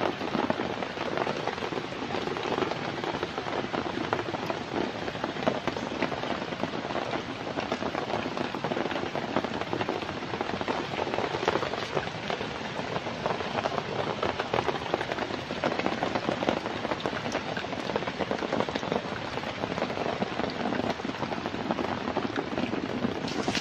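Heavy rain pouring down steadily, a dense patter of drops.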